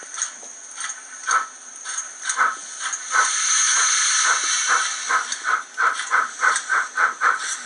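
Digital sound decoder of an HO scale model steam locomotive playing exhaust chuffs through its small onboard loudspeaker, with a long loud steam hiss about three seconds in. After the hiss the chuffs come faster, about three a second.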